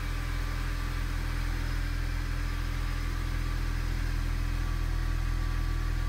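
2004 Honda Civic's D17 four-cylinder engine idling steadily, heard from inside the cabin. It runs rough from a cylinder 3 misfire, later traced to a leaking head gasket.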